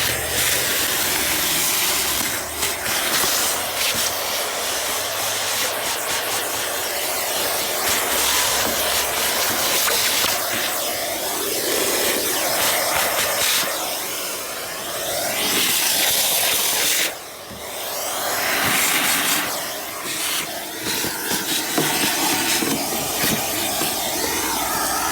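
Car-cleaning equipment hissing steadily as it works over the car, swelling and easing as it moves, with short breaks, the clearest about two-thirds of the way through.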